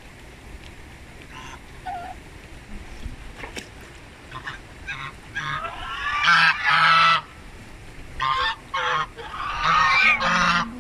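Domestic geese honking: a few faint calls, then repeated loud, harsh honks in clusters through the second half.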